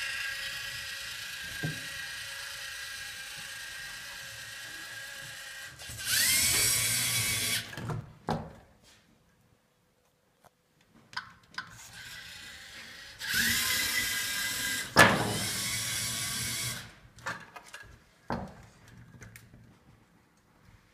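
LEGO Mindstorms EV3 robot's electric motors whining as it drives and works its attachment. Two louder runs begin with a rising whine, about six and thirteen seconds in. A sharp clunk comes about fifteen seconds in, and there are light plastic clicks toward the end.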